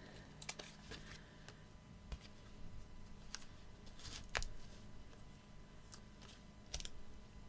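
Faint handling sounds of card and foam pads being placed by hand: a few light clicks and taps, with the loudest about four seconds in, over a faint steady hum.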